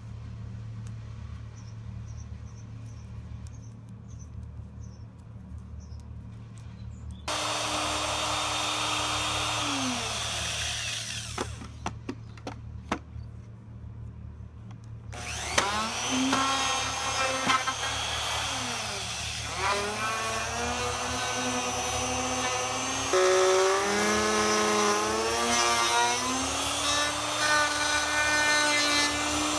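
Black & Decker plunge router switched on about seven seconds in, running briefly and winding down, then a few clicks. It starts again about halfway through and runs on cutting wood, its pitch dipping and recovering several times as the bit bogs down under load. A steady low hum lies under the quiet first seconds.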